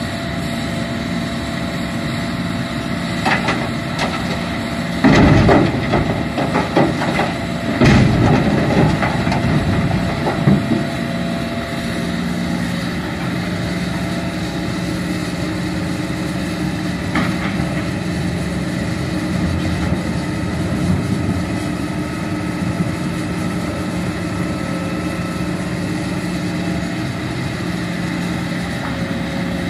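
Hitachi Zaxis 210F excavator's diesel engine running steadily as it works. A run of loud knocks and clattering from the bucket working earth and rock comes about five to eleven seconds in, with a few lighter knocks before and after.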